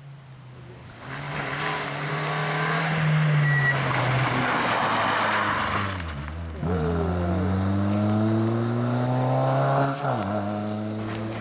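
Renault Twingo rally car driven hard through a bend: the engine rises in pitch as it approaches, falls off as it slows for the corner, then climbs steadily as the car accelerates away. About ten seconds in the pitch drops suddenly with an upshift, then climbs again.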